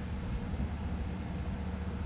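Agricultural plane's radial engine, a low, steady drone as the plane makes a low pass.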